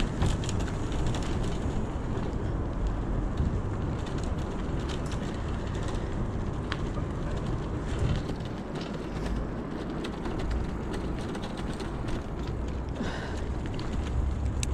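Electric bicycle rolling along a rough towpath: steady tyre rumble with frequent small rattles and clicks from the bike and its wicker basket.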